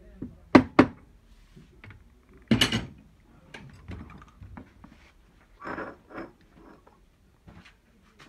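Two sharp blows of a brass-headed mallet on a diesel turbocharger's core, about a quarter second apart. They are followed by a short scrape and scattered clinks of metal parts and tools being handled on a steel workbench.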